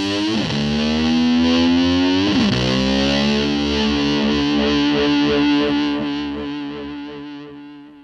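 Closing bars of a hard-rock track with distorted electric guitar. The guitar slides down and back up in pitch twice, then holds one long note that fades out over the last two seconds.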